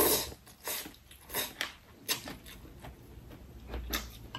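A person slurping noodles at the start, followed by several short, soft eating noises: chewing and chopsticks against a bowl.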